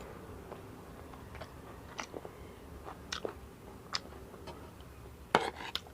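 A person chewing a mouthful of spicy puffed-rice chatpate close to the microphone: scattered soft crunches and wet mouth clicks, with a sharper cluster of clicks near the end.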